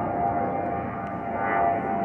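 Twin-engine jet airliner climbing overhead after takeoff: a steady engine whine over a broad rumble, swelling a little near the end.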